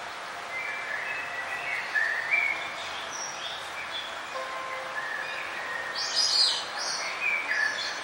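Several birds chirping, in short calls that overlap, over a steady background hiss, with a louder burst of higher calls about six seconds in.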